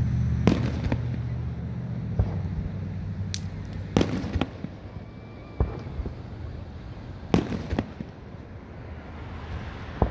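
Fireworks shells bursting: about ten sharp bangs at uneven intervals, some close together in pairs. A vehicle engine's low hum fades out over the first two seconds or so.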